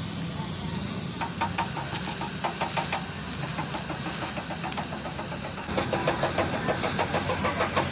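An engine running with a rapid, regular knocking, over a steady high hiss.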